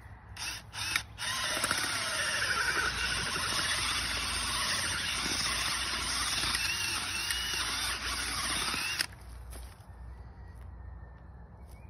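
Cordless drill turning a garden auger bit down into soil. A few short blips of the trigger come first, then the drill runs steadily for about eight seconds and stops suddenly.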